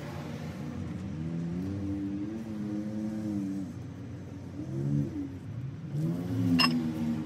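A motor vehicle's engine running, its pitch rising and falling in several long swells.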